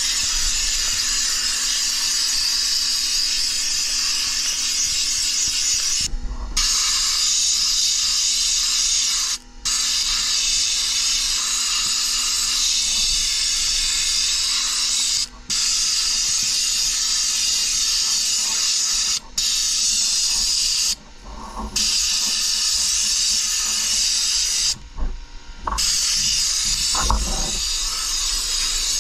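Compressed-air sandblasting gun blasting rust off steel mower parts with fine coal-slag grit: a loud steady hiss that stops briefly about six times and starts again.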